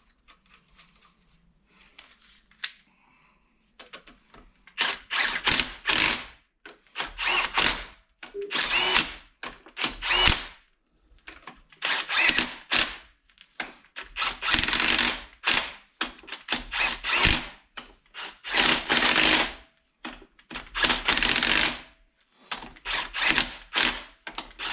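Handheld power tool run in short bursts of about a second, roughly one every two seconds from about five seconds in, spinning ring gear bolts back into a differential carrier.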